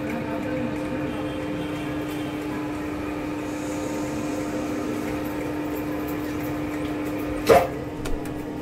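Spiral dough mixer running at slow speed on its automatic timer, a steady electric-motor hum with an even tone. A sharp clack comes near the end, followed by a smaller one, as the timer switches the mixer over to fast speed.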